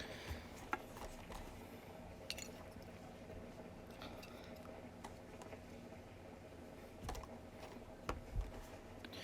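A few scattered light clicks and taps of small parts and tools being handled on a work surface, over a faint steady hum.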